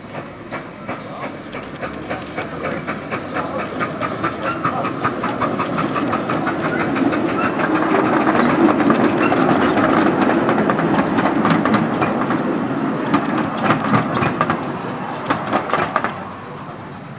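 A ridable miniature live-steam train passes by, its steam locomotive running with a rapid run of regular clicks as the train rolls along the track. It grows louder toward the middle and falls away near the end.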